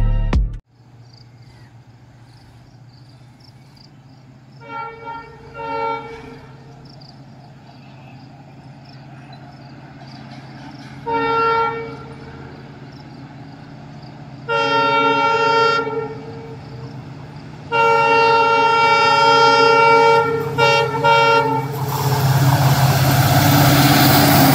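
WDP4D diesel locomotive sounding its horn as it approaches: two short blasts, then blasts growing longer, the last held about four seconds with brief breaks, over a steady low engine hum that grows louder. Near the end the train's engine and wheels surge loud as it draws close.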